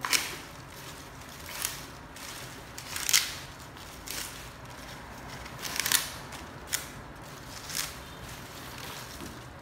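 Dry banana leaves crackling and rustling as they are handled and pulled apart, in about seven separate bursts, the loudest about three seconds in.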